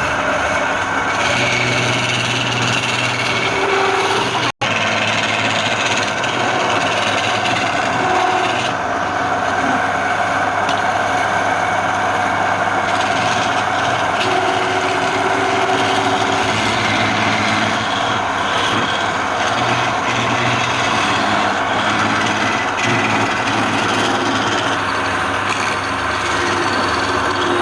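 Wood lathe running steadily, with a tool rubbing and scraping against the spinning wood; there is a split-second dropout about four and a half seconds in.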